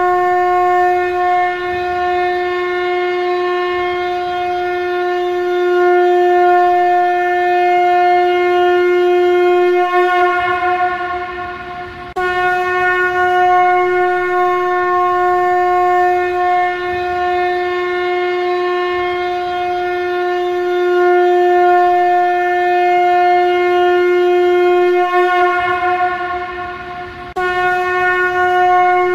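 Shankha conch shell blown in long, steady blasts on one pitch, each held for about a dozen seconds. Each blast tails off, then a new one starts abruptly; this happens twice.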